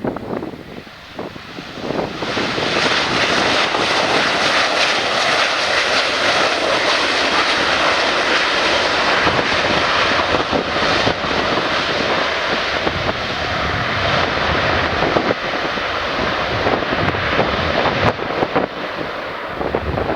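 Lion Air airliner's engines passing close on its landing approach: a loud, steady rushing roar that swells in about two seconds in and eases slightly near the end.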